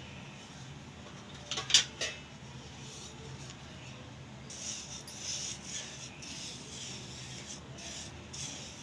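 Spatula stirring undissolved granulated sugar in water in a kadhai, the gritty crystals scraping against the pan bottom from about four and a half seconds in. A couple of sharp knocks about two seconds in, and a low steady hum underneath.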